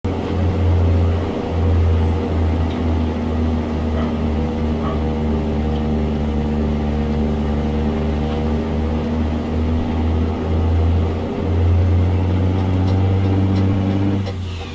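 Mercedes-Benz Actros truck's diesel engine running at steady revs with a deep rumble. Near the end the sound briefly breaks and picks up again at a slightly different pitch.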